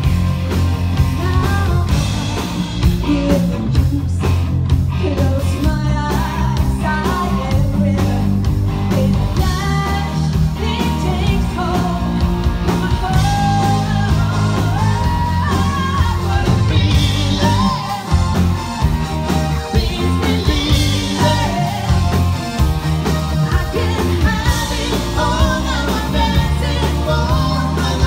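Live rock band playing: a woman sings over electric bass, drums and keyboards, with a heavy bass line.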